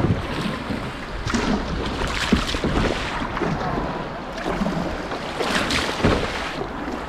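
Water splashing and lapping around a sea kayak in irregular bursts, with wind buffeting the microphone.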